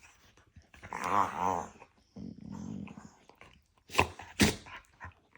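Two dogs squabbling: a wavering whine-like grumble, then a low growl, then two sharp yaps about half a second apart, a playful argument rather than a real fight.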